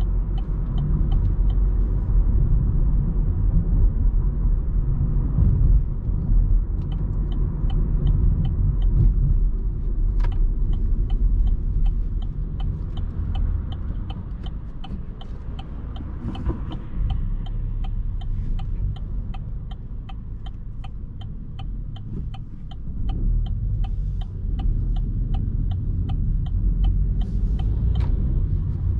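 Cabin sound of a 2020 Opel Astra's 1.2 petrol engine and tyres on the road: a steady low rumble that eases through the middle and then picks up again. Through most of it the turn-signal indicator ticks quickly and evenly.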